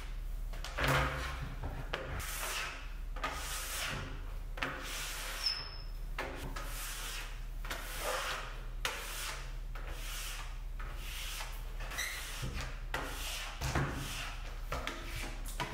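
A rubber squeegee blade is drawn down a wet glass shower door in quick repeated strokes, about one to two a second, wiping the water drops off the glass.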